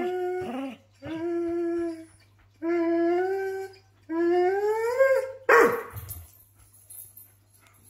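Greyhound rooing: four drawn-out, howl-like calls of about a second each, the last one rising in pitch, then a single short, louder bark about five and a half seconds in.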